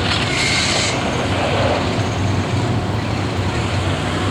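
Street stock race car engines running steadily with a low rumble, with a short burst of high-pitched hissing noise about half a second in.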